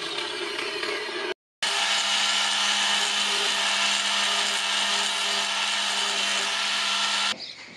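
Angle grinder with an abrasive disc grinding a steel machete blade: a steady motor hum under a loud hiss of abrasion. It starts about one and a half seconds in and cuts off suddenly near the end.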